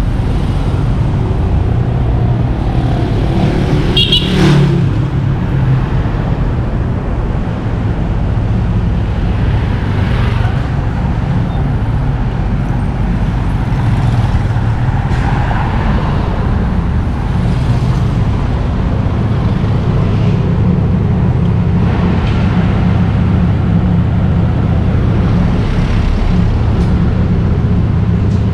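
Steady road traffic: engines running and vehicles passing close by, with a brief high-pitched squeal about four seconds in.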